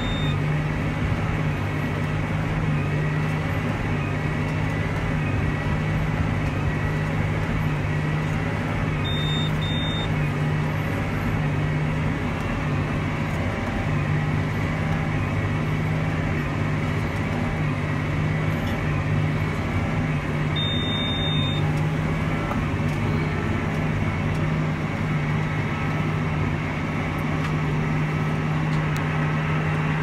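John Deere 8335R tractor's six-cylinder diesel running steadily under load, heard from inside the cab while it pulls a Massey Ferguson 2270XD large square baler, with a low, constant drone. A few short high electronic beeps sound at the start, around 9 to 10 seconds in, and once more around 21 seconds in.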